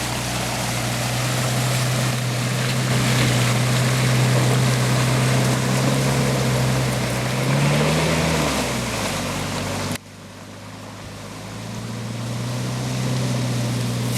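An off-road SUV's engine running under load through mud, over a steady rushing noise; the revs rise and fall briefly about eight seconds in. The sound cuts abruptly about ten seconds in, and the engine then builds up again.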